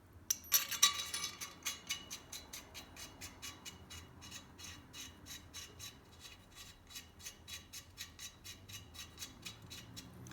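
Metal clicking as a shotgun choke tube is turned in the muzzle with a choke key. A clatter comes about half a second in, then a steady run of light clicks, about four or five a second.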